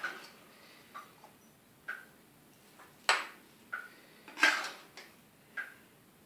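Spoon knocking and scraping against a metal kadhai and a china bowl while halwa is scooped out: a series of short knocks about a second apart, the sharpest about three seconds in, with a longer scrape a little after.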